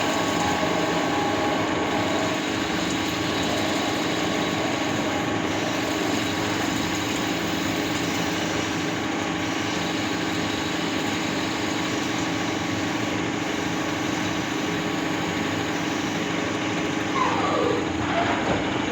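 ACE LT-2 CNC turning lathe running: a steady mechanical hum with a constant whine. Near the end a short whine falls and then rises again.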